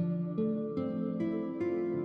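Soft instrumental background music: plucked string notes struck about every 0.4 s in a slow melodic line, each note ringing on into the next.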